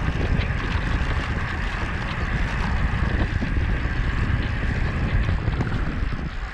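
Wind rushing over the microphone of a camera held low on a road bike being ridden, a steady low rumble with a fainter hiss above it.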